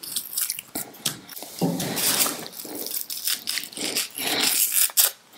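Small onions being peeled with a small knife: the dry, papery skins crackle and tear in a run of irregular scratchy crunches.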